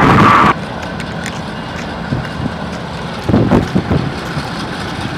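BNSF diesel locomotive's engine running loud under load, cut off abruptly about half a second in. Then a quieter steady rumble, with scattered sharp clicks and a cluster of low thumps about three seconds in.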